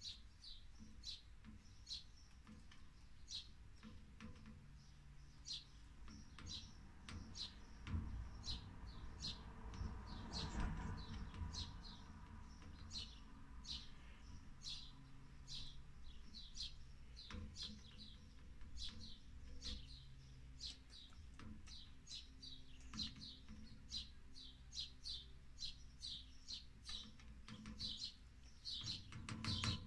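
A small bird chirping over and over, short high chirps about one or two a second, with a faint low rumble that swells for a few seconds near the middle.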